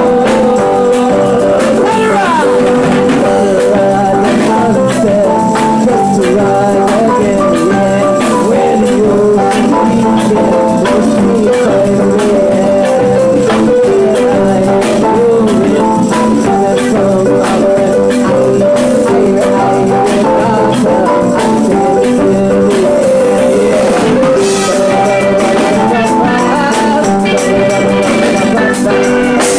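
Live band playing: women's voices singing into microphones over electric guitar, keyboard and drums, with a steady beat.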